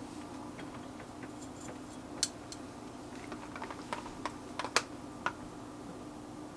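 Scattered light clicks and taps of kitchen tongs and dishware as food is set onto a plate, bunched in the middle and latter part, over a steady low hum.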